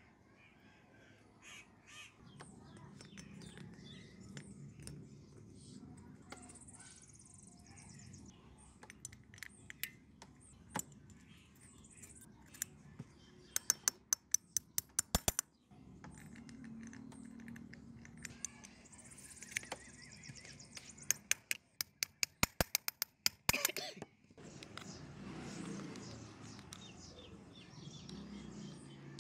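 Crows cawing in the background while small metal parts are handled, with scattered clicks and, midway through, two runs of rapid sharp clicking that are the loudest sounds.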